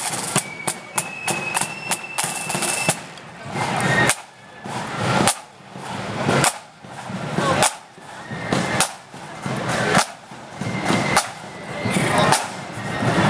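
Marching band's snare drums and bass drum playing, with rapid drum strokes and a few high held notes in the first three seconds, then a repeating beat that swells to a sharp accent about every second and a bit.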